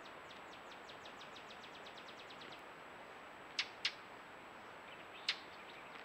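A bird singing a rapid run of about twenty short down-slurred whistled notes that speeds up, then three sharp, short, louder sounds, two close together and one more over a second later.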